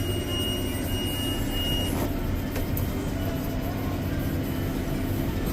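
Tractor engine running steadily under load while pulling a round baler through a windrow. A thin high whine stops about two seconds in.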